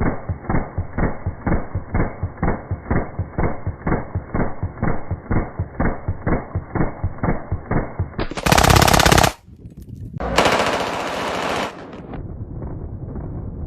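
Rapid automatic gunfire, about four shots a second, muffled and dull. Near the end it gives way to two loud bursts of harsh noise and then a low steady rumble.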